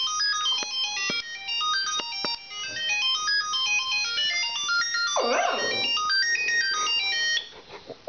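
Mobile phone ringtone playing a fast melody of short stepped electronic notes, which stops about seven and a half seconds in. About five seconds in, a Lhasa Apso gives a short howl along with it.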